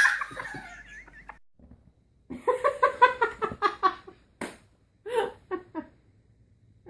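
A person laughing in quick, high-pitched bursts, starting a couple of seconds in and breaking off near the end. It is preceded by a loud shrill burst at the very start that fades within about a second.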